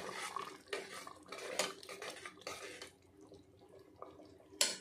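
A spoon stirring cooked chickpea curry in a pressure cooker, scraping and clinking against the pot with a wet slosh, ghee being mixed in. There are several strokes in the first three seconds, then it goes quieter, with one sharp clink near the end.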